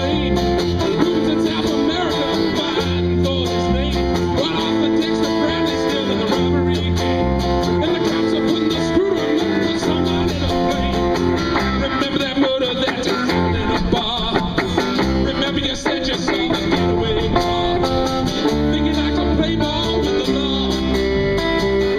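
Live band music with guitars over steady, pulsing bass notes.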